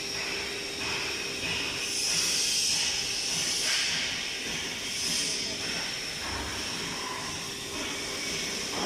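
ATC CNC router running its automatic tool-length measurement cycle: a steady machine hum with a hissing noise that swells twice, around two seconds in and again near five seconds.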